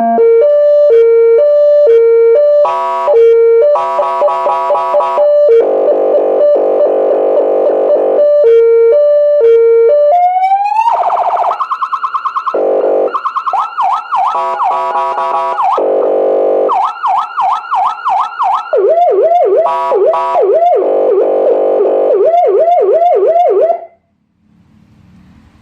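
200-watt electronic siren played through its speaker, cycling through tones: a two-note hi-lo alternation, a rising wail, then fast repeated up-and-down yelp sweeps. It cuts off suddenly near the end.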